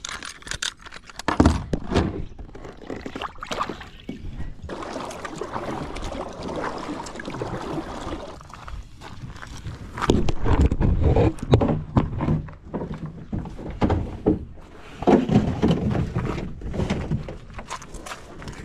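Irregular knocks, thumps and rustling close to the microphone as the camera and gear are handled, heavier from about halfway through.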